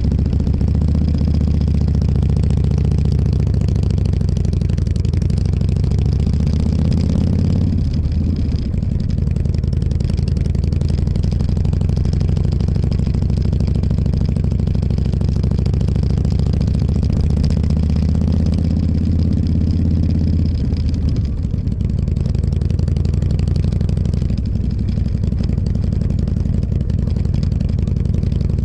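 Motorcycle engine running under way, its note climbing steadily and then dropping sharply twice, about eight seconds in and again about twenty seconds in, as with a throttle change or gear shift.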